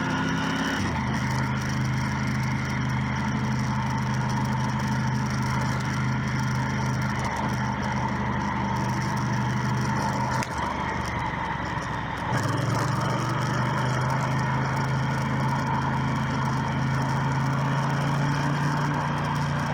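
Motorcycle engine running steadily while riding, heard from the bike with wind and road noise. About a second in the engine note steps down as the bike shifts up a gear, and around ten seconds in it drops away for about two seconds before the engine picks up again.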